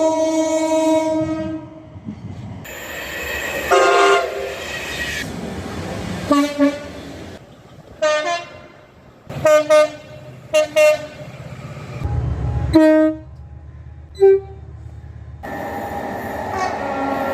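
British train horns sounding in a string of short clips cut together: a long blast at the start, another about four seconds in, then a run of short toots and quick pairs of blasts. Train running noise fills the last couple of seconds.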